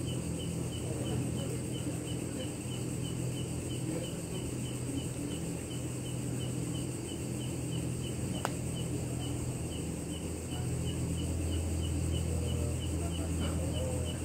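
Night insects: a steady high shrill with a regular chirp about three times a second, over a steady low hum that grows a little louder after about ten seconds. A single sharp click about eight seconds in.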